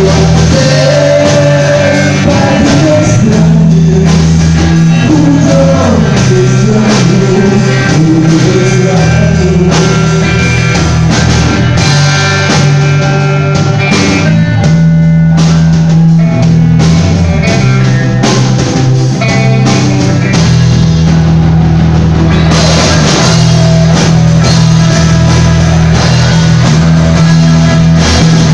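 A live rock band playing loudly: electric guitars and a drum kit, the chords held long over steady drum strikes.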